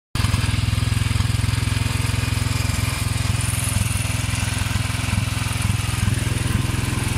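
Royal Enfield Thunderbird 500's single-cylinder engine idling steadily, loud and close. It is being run dry to burn off the last petrol left in the fuel system.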